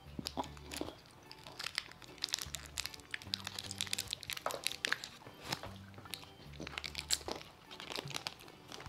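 Plastic candy wrapper crinkling as it is handled and opened, an irregular run of sharp crackles and crunches, over background music with a low bass line.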